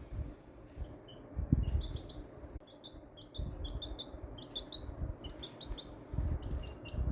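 Domestic chicken chick peeping in quick runs of short, high cheeps. Dull low thumps or rumbles come now and then, the loudest about a second and a half in.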